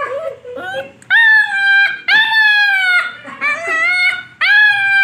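Puppy whining in high, drawn-out cries, about four of them, each sliding slightly down in pitch.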